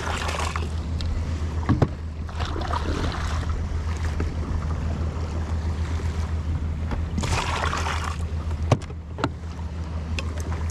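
Seawater splashing as a plastic cup is dipped over the side of a kayak and emptied into a makeshift live well, three times, over the steady low hum and water rush of the moving kayak. A couple of sharp knocks, the loudest about nine seconds in.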